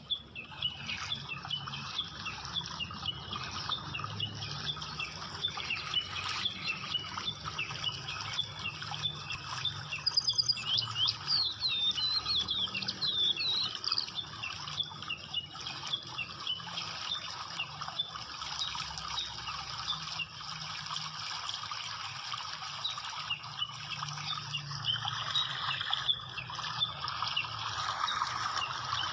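Birds chirping: many short high chirps and quick trills, busiest about ten to fourteen seconds in, over a steady low hum.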